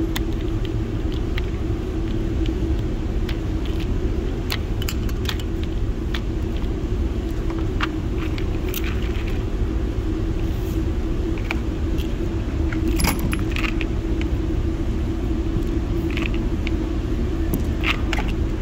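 Steady low rumble with a constant hum, typical of an indoor range's ventilation system, with scattered light metallic clicks and clinks over it. No gunshots.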